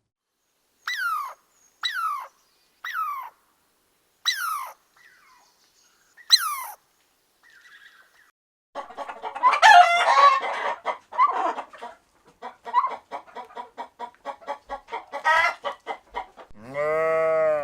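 Chickens calling: five separate short falling calls in the first seven seconds, then a long stretch of rapid clucking and cackling. In the last second a sheep's drawn-out bleat begins.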